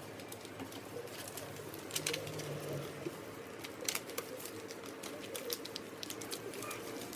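Origami paper being folded and creased on a tabletop: scattered soft crackles and ticks as fingers press and run along the folds.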